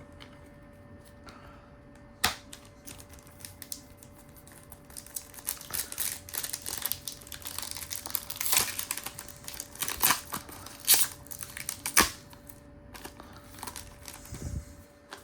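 Foil wrapper of a Topps Chrome football card pack crinkling and tearing as it is opened and handled. A single sharp click comes about two seconds in, and the crinkling is densest from about five to twelve seconds in.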